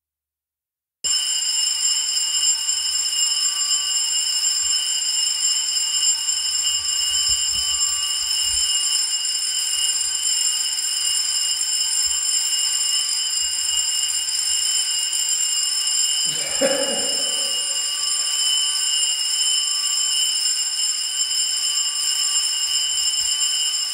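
Electric school bell ringing steadily and without a break for over twenty seconds, starting about a second in. This is the long ring set to mark the start of a lesson.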